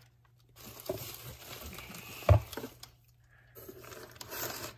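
Clear plastic zip bags crinkling as hands handle plastic-wrapped glass jars in a cardboard box, with one sharp knock about halfway through.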